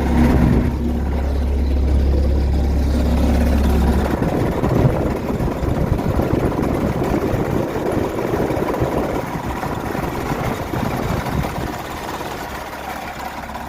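Diesel skid steer engine running, loud: a steady low drone that gives way about four seconds in to a rougher, noisier clatter.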